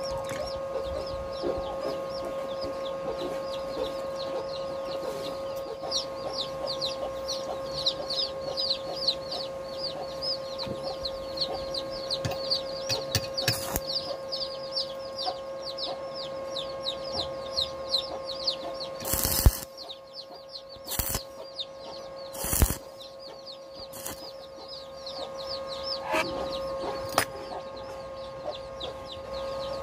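Chicks peeping in a fast run of high, falling chirps over a steady hum. A few sharp knocks of handled metal parts and tools two-thirds of the way through, loudest of all.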